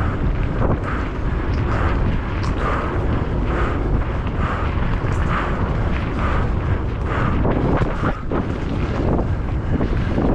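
Wind buffeting the microphone at speed, over the steady rumble and rattle of a mountain bike racing down a rough trail, with many short knocks from the bike.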